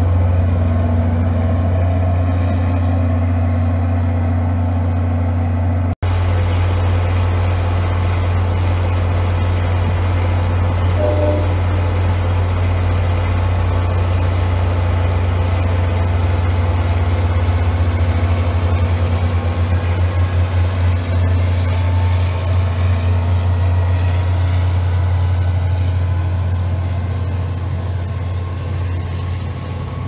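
MBTA commuter rail diesel locomotive and passenger coaches moving past, with a loud steady low engine drone. From about a third of the way in, a faint high whine rises slowly in pitch as the train pulls away, and the sound eases off near the end. There is a brief dropout about six seconds in.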